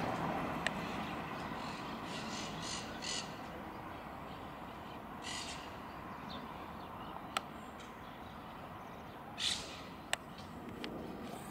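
Jet noise of a Boeing 767-400ER airliner passing overhead on approach, a broad rumble that fades slowly. A few short, harsh bird calls and some sharp clicks sound over it.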